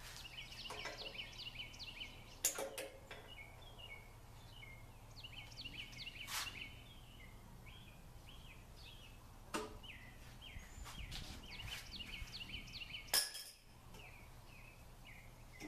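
Songbirds singing a quick, repeated chirping song throughout, with about half a dozen sharp metallic clicks and knocks from hands working on the garden tractor's engine, the loudest near the end. The engine does not fire.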